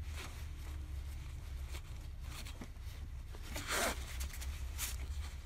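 Pliers and a hose clamp scraping and rubbing against a rubber coolant hose as the clamp is worked onto its fitting, with one louder scrape about four seconds in, over a faint steady low hum.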